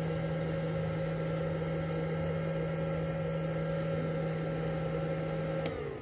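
Steady electrical machine hum with a fixed low tone and a higher whine, switched off with a click near the end, its pitch then falling away as it winds down.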